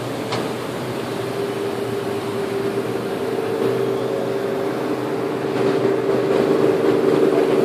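Boat engine running steadily, a low hum over a wash of noise, growing a little louder toward the end.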